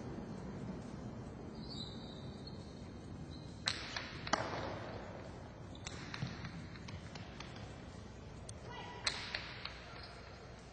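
Jai-alai ball (pelota) striking the walls and floor of the court during a rally: a series of sharp, echoing cracks, the loudest about four seconds in, then more about six and nine seconds in.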